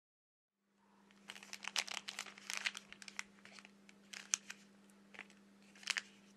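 Plastic accessory packets holding phone flex cables crinkling as a hand handles them, in irregular crackles over a faint steady hum.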